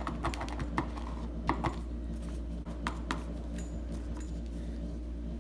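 Handling sounds of vinyl upholstery material being pressed and worked onto a door panel: scattered light taps, clicks and rustles at an uneven pace, over a steady low hum.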